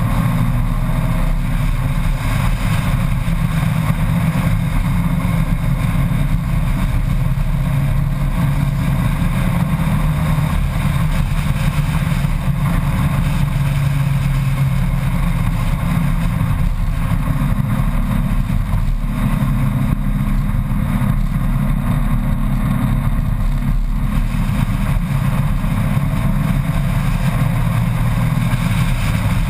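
Motorcycle riding at a steady road speed: a continuous rush of wind across the bike-mounted microphone, with the engine's drone underneath.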